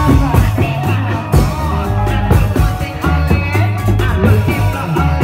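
Live music of a Reog Indramayu (bleknong) street troupe: a steady drum beat and a bass line of held low notes under a wavering melody line.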